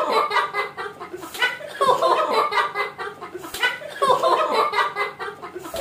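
Several children laughing hard in repeated fits of rapid giggling, with one sharp smack a little past halfway.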